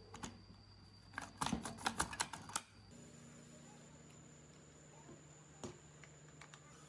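A quick run of sharp clicks and knocks lasting about a second and a half, starting about a second in, then a single knock near the end, over a faint steady hum.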